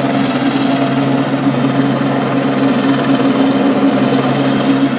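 Police helicopter close by, its rotor and engine running steadily and loudly.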